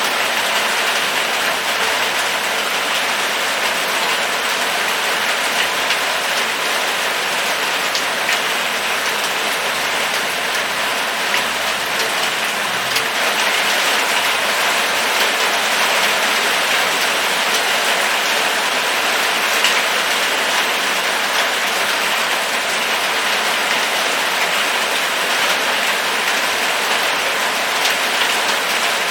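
Steady rain falling on surfaces, a dense even hiss with the scattered ticks of individual drops.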